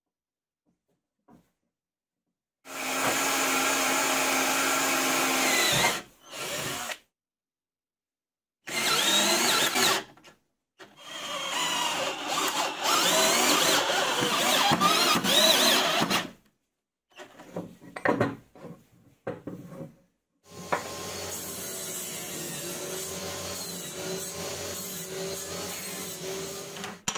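Power tools working wood in several separate stretches, each stopping suddenly with silence between them. The last and longest stretch is a steady machine run with a wavering hum.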